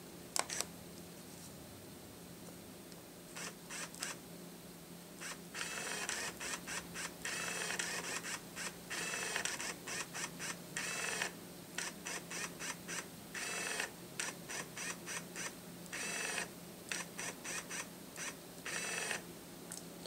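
Nikon SB-600 speedlight's motorized zoom head whirring in dozens of short bursts, one after another, as the zoom is stepped in and out; a single click about half a second in.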